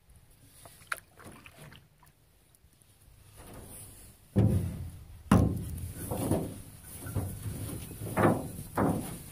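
Canoe being paddled with a wooden paddle: quiet at first, then about halfway in two heavy thumps, followed by paddle strokes swishing through the water roughly once a second.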